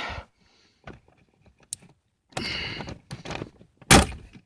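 Small folding knife scraping and sawing at a plastic zip tie, with faint clicks and rustling of plastic trim, and a sharp loud click near the end.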